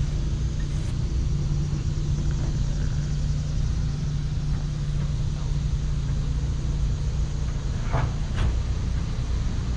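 A motor running steadily with a low, even rumble and a constant hum. Two short sharper sounds stand out near the end.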